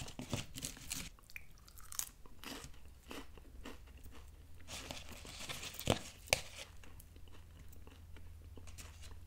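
Light taps and clicks of crisp sugar-free lemon wafer cookies being set down and stacked on a plate, with two sharper clicks about six seconds in.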